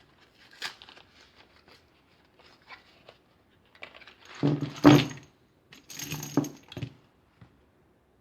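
Rifle cartridges being handled and taken out of their box: light clicks and rustling, then two louder clinking rattles about halfway through, with a faint metallic ring.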